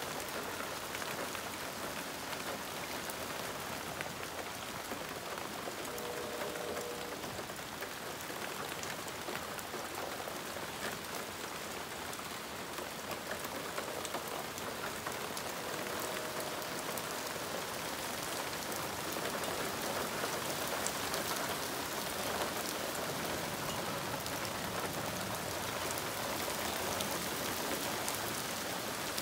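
Hard rain falling steadily on garden foliage and lawn: an even hiss, with many sharp individual drop hits. It grows a little heavier after about twenty seconds.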